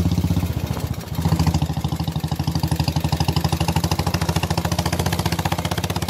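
Motorcycle engine running under way, a fast, even thudding of exhaust pulses heard from on the bike. It eases briefly about a second in, then picks up again.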